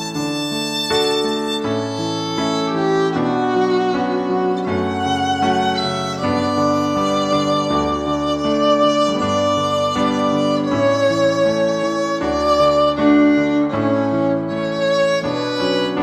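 Background music: a violin melody of long, slightly wavering held notes over a steady lower accompaniment, changing note every second or so.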